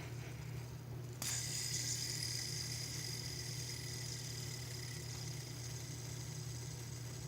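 Fidget spinner spinning with a steady high whir over a low hum. About a second in there is a sharp click, after which the whir is louder.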